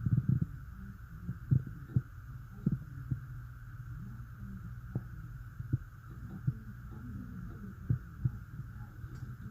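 About a dozen dull, irregular thuds from the apartment above, heard through the ceiling and sometimes coming in pairs, over a steady low hum.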